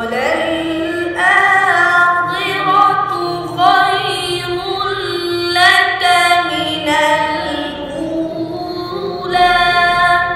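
A boy's voice reciting the Quran in slow, melodic tarteel chant, in several long phrases with held notes that bend and turn in pitch.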